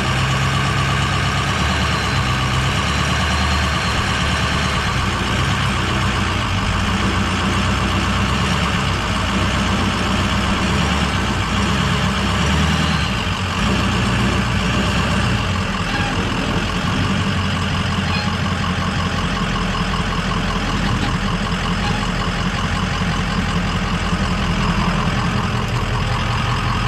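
Dually pickup truck's engine running steadily at low speed as the truck creeps up onto a trailer, its low note shifting about halfway through.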